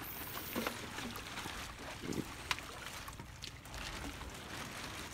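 Small splashes and sloshing water as a plastic bag of milkfish fingerlings is dipped and emptied into the sea at the edge of a net pen, with a few soft knocks and a steady hiss behind.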